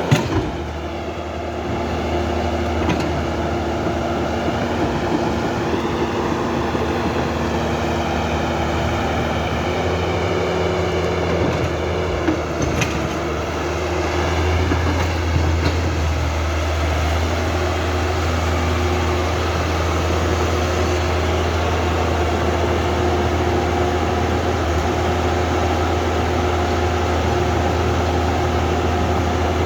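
Huina 1550 RC excavator's electric motors and gearboxes whining steadily as the grab arm works, the pitch wavering as the motors speed up and slow, with a few short clicks.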